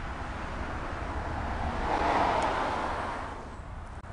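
A vehicle passing by: its noise swells to a peak about halfway through and fades away, over a steady low rumble.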